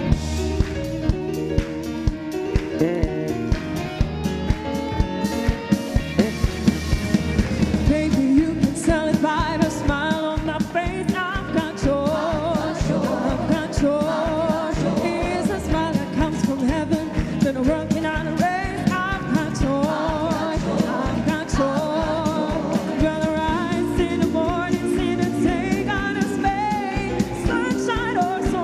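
A worship song with band accompaniment and a steady beat: an instrumental introduction, with singing coming in about eight seconds in.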